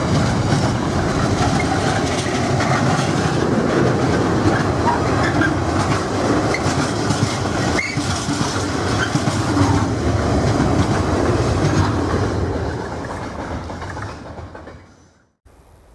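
Container freight train wagons rolling past steadily on the track. The noise fades as the last wagons go by, then drops off suddenly near the end.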